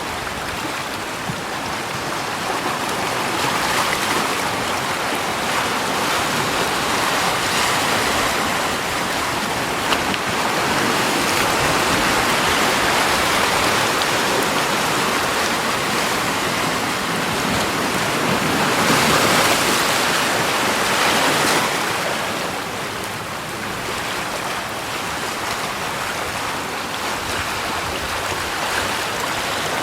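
Rushing water: a steady, loud wash that swells and eases a few times, with its biggest surge about two-thirds of the way in.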